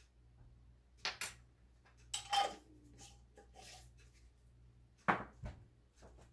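Kitchen utensils being handled: a measuring spoon, a ceramic mixing bowl and small glass spice jars clink and scrape lightly, with a few sharp clicks about a second in and a louder knock about five seconds in as something is set down on the counter.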